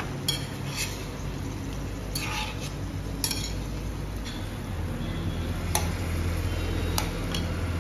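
A metal spatula scraping and clinking against a metal pan while stirring a wet potato and cauliflower curry: scattered knocks and scrapes over a low steady hum.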